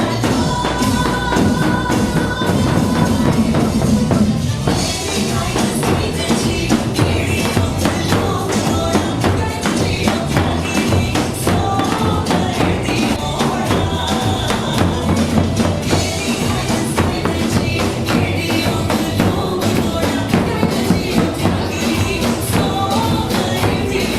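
Dance music with a steady, busy beat and dense percussion throughout.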